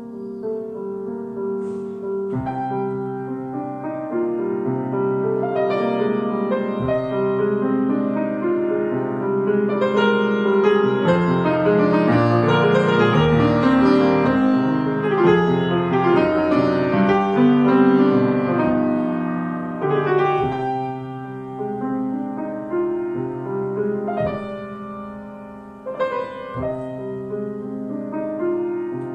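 Grand piano played solo: full chords that build to a loud climax about halfway through, then ease off again.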